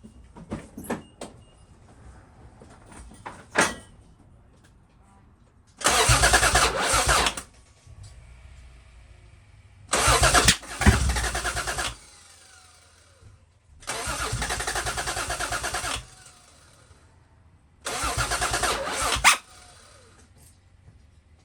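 Toyota Supra Mk3 straight-six turned over by its starter in four separate cranking bursts of one and a half to two seconds each, each stopping abruptly. The engine cranks but does not catch: a crank-no-start condition. A few sharp clicks come before the first burst.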